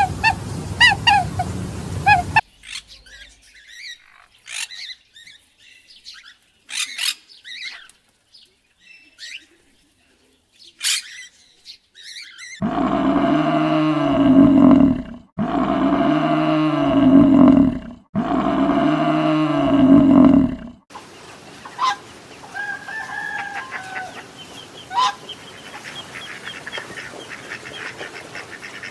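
Poultry and small birds calling. Scattered short chirps come first. Then, about halfway through, there are three loud, identical long calls in a row, each about two and a half seconds. Faint chirping follows to the end.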